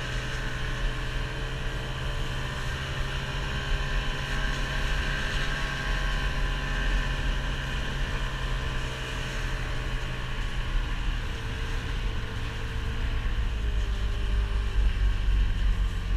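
An engine running steadily at an even speed, as from a vehicle under way.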